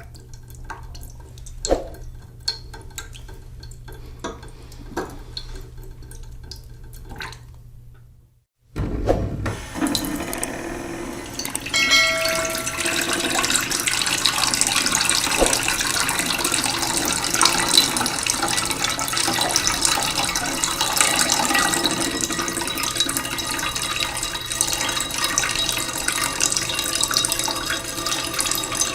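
Falling water rushing steadily, loud and even. It comes in after a quieter stretch of scattered clicks and a low hum that cuts out briefly about eight seconds in. A short ringing tone sounds a few seconds after the water begins.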